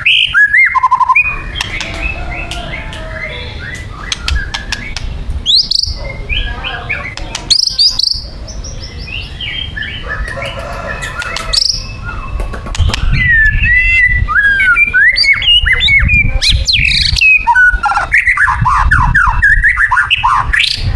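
White-rumped shama singing a long, varied song of clear whistles, quick trills and rapid chattering phrases. It is loud at the very start, quieter for several seconds, then loud again in the last third.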